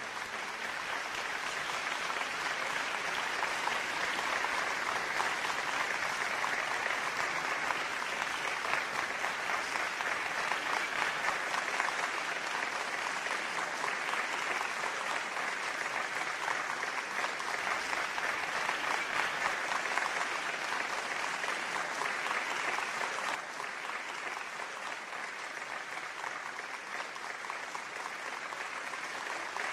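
A theatre audience clapping steadily, a dense patter of many hands that eases slightly about two-thirds of the way through.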